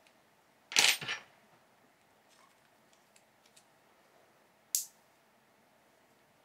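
Small metal screw and hex key handled against 3D-printed plastic extruder parts: a quick cluster of sharp clicks about a second in, faint ticks after, and one more sharp click near the end.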